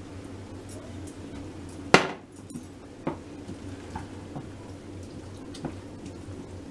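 A glass sauce jar clanks once, sharply, about two seconds in, followed by a few lighter knocks of a wooden spoon against a metal pot as tomato sauce is stirred, over a low steady hum.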